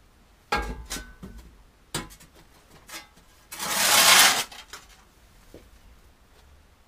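A metal shovel knocking and clanking several times, then scraping hard across the coop floor for about a second as it digs up old wood shavings and chicken manure.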